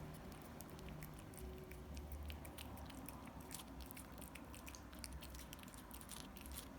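A cat eating: faint, quick wet clicks and smacks of chewing and licking, many times a second.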